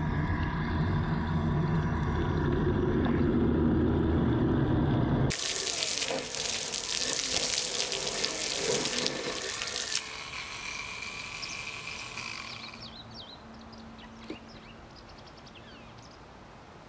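3D-printed centrifugal water pump driven by a 775 DC motor, churning water and shooting a jet that splashes across gravel. About ten seconds in, the flow stops and the sound fades to a trickle and drips.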